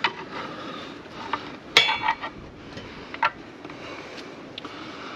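Metal pry bar and tools clinking against the Fordson Super Major's bell housing as it is pried off the engine block: a handful of sharp metal clinks, the loudest one ringing briefly about two seconds in.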